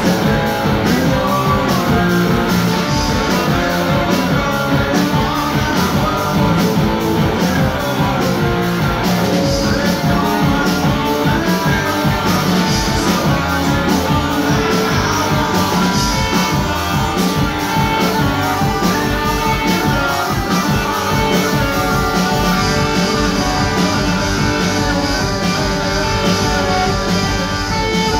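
Live rock band playing: electric guitars and a drum kit, with a lead singer over them, at a steady loud level.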